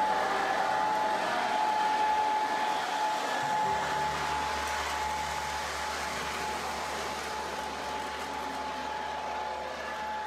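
Lionel O-gauge model train running on three-rail track: the steady whir of the locomotive's electric motor and wheels rolling on the rails, with a deeper hum joining about three and a half seconds in.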